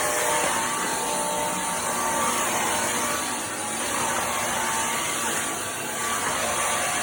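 Simplicity Go-Go cordless stick vacuum running steadily, a continuous motor and suction noise with a faint whine that dips slightly twice.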